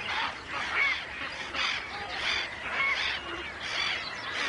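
A nesting colony of waterbirds, black-headed gulls and terns among them, calling. Many short, harsh cries overlap one another continuously.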